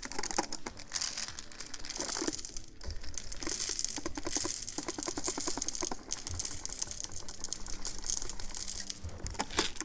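Activated charcoal pellets rattling as they pour out of a tub into a 3D-printed plastic carbon magazine, mixed with the crinkle of the tub's torn foil seal: a dense, continuous run of small clicks and rustling.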